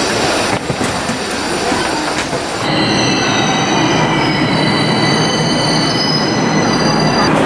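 Subway train pulling into the platform behind screen doors: a rushing rumble, then from about three seconds in a high squeal of several steady tones, a couple falling slowly as it brakes.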